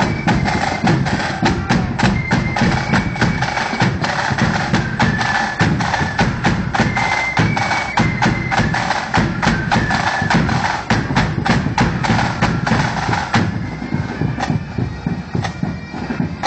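Marching flute band playing a tune over rapid snare drums and a bass drum. About 13 seconds in the flutes stop and the drums play on alone.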